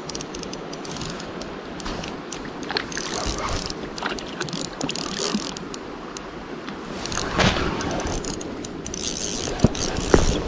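Spinning reel being cranked to wind in line, its gears turning with scattered light clicks. A brief louder noise comes about seven seconds in.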